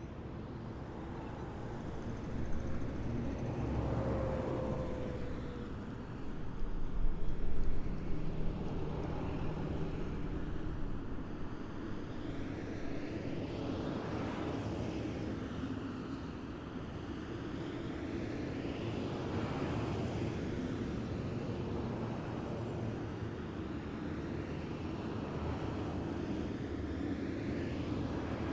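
A column of heavy military vehicles drives past one after another, their engines rumbling steadily. Each vehicle swells and fades as it goes by, about five passes in all. The loudest is a deep, heavy surge roughly a quarter of the way in.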